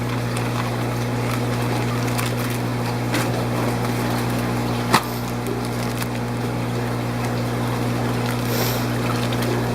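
Steady hum and water noise of an aquarium fish room's pumps and filtration running, with one sharp click about halfway through.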